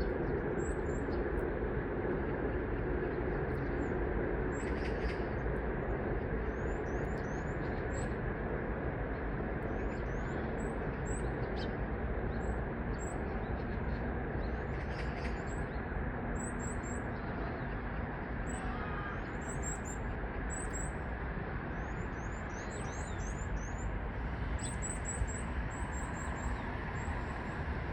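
Small birds chirping, many short high calls scattered throughout, over a steady low noise that holds at one level.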